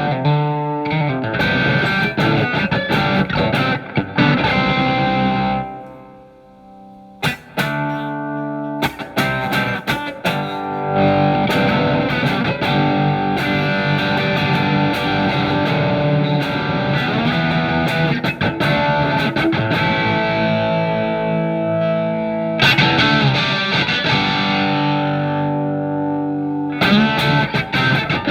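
Electric guitar, a Telecaster with single-coil alnico pickups, played through a Marshall MG15FX solid-state practice amp on its OD2 overdrive channel. It plays distorted licks and sustained notes, letting the sound die away briefly about six seconds in before the playing resumes.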